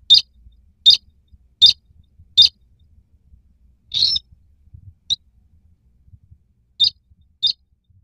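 Bird-lure recording of the sintar sawah's call: short, sharp, high-pitched calls. Four come evenly about three-quarters of a second apart, then a slightly longer one, a short faint one, and two more near the end.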